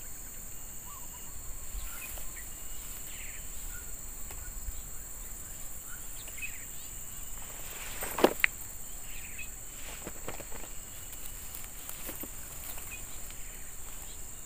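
Insects buzzing in a steady high drone, with two sharp clicks a fraction of a second apart about eight seconds in, the loudest sound.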